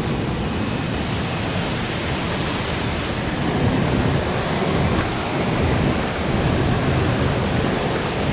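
Waterfall in a forest: a steady, loud rush of falling water.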